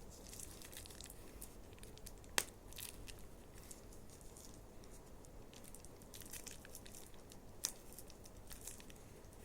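Plastic toy packaging being handled and opened, faint crinkling and tearing, with two sharp clicks a few seconds apart.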